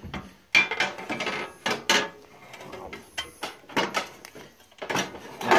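Hands working on a snowblower engine: a string of irregular clicks, knocks and metal rattles, busiest in the first two seconds.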